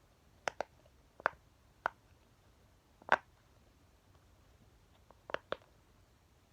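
Bubbles on a silicone flower pop-it puppet fidget being pressed one at a time, each giving a short, sharp pop, about seven at uneven intervals.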